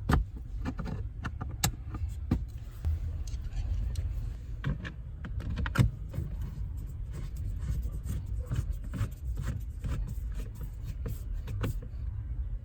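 Scattered small clicks and taps of hand tools and plastic trim being handled while screws are put back into the plastic cover under a car's steering column, over a low steady rumble.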